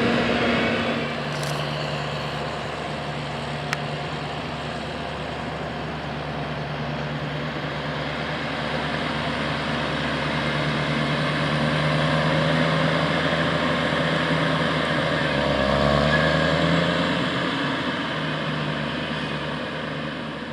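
Diesel engine of heavy farm machinery running steadily, with a constant low hum over a rushing mechanical noise. It grows louder toward the middle and fades toward the end.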